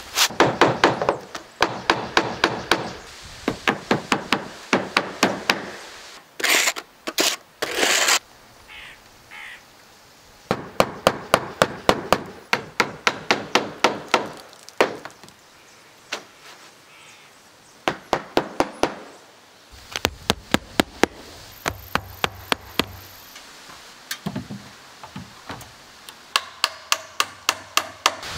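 Hammer driving nails into a wooden roof deck, in quick runs of several strikes a second with short pauses between runs. A few short scraping sounds come between the runs.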